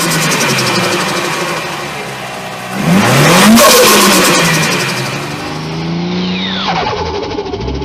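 Turbocharged car engine revving hard about three seconds in, then dropping back. Rapid fluttering chatter sounds as the throttle closes: compressor surge from a turbo run without a blow-off valve. A whistle falls in pitch near the end.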